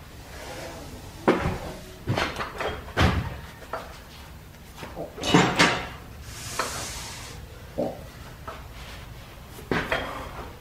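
Long flat leather drive belt being handled and worked off its line-shaft pulleys: a run of irregular knocks, slaps and thumps, with a brief hiss about two-thirds of the way through.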